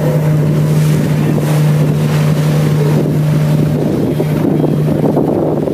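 River ferry boat's engine running steadily, a constant low hum, with water rushing along the hull and wind buffeting the microphone.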